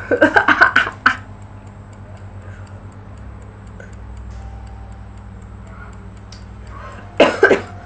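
Faint, fast, even ticking, about four ticks a second, over a low steady hum, with brief speech at the start and near the end.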